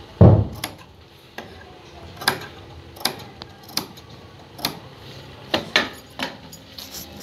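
Scissors snipping small clipping notches into the fabric seam allowance of a curved neckline so that it folds in cleanly: about nine sharp snips, roughly one a second, after a dull thump near the start.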